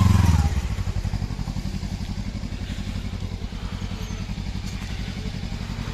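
Kawasaki Ninja 300's parallel-twin engine dropping off revs about half a second in, then running steadily at low revs with an even, rapid pulse.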